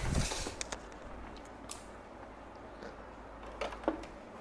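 Quiet room tone with a steady low hum, and faint clicks and soft knocks of radio-cassette players being handled: a few clicks just after the start and a couple of knocks near the end.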